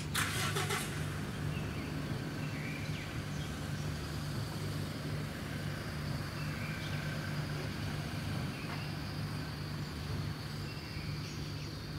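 Outdoor ambience: a steady low hum throughout, with a thin, high insect drone coming in about four seconds in and a few short bird chirps. A brief burst of noise right at the start.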